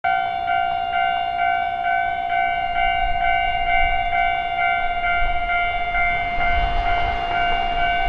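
Japanese railway crossing's electronic warning bell ringing its steady repeated ding-ding, about two strikes a second. A low rumble swells and fades about six to seven seconds in.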